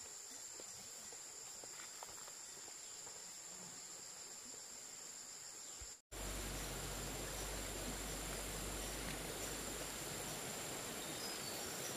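Steady high-pitched insect chirring in the background. About halfway through, after a brief cut-out, a louder even noise with a low rumble comes in over it.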